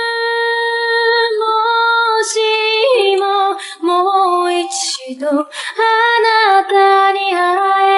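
A woman's singing voice holds long, steady notes, with a stretch of shorter, broken notes in the middle.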